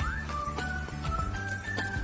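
Music: a high, whistle-like melody repeating a short phrase over a steady bass line.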